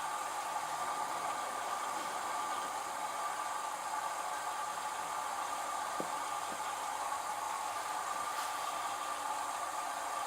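LG F1222TD direct-drive washing machine running its Baby Care prewash: a steady whirring hum, with one faint click about six seconds in.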